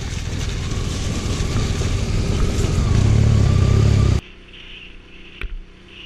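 Touring-enduro motorcycle engine running and growing louder over a rushing noise. It cuts off abruptly about four seconds in, leaving a much quieter background.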